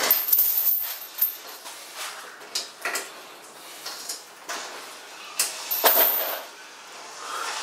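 Boxing gloves striking hanging punching bags made of plastic-wrapped stacked tyres, in an uneven series of about seven sharp hits, the loudest near the end.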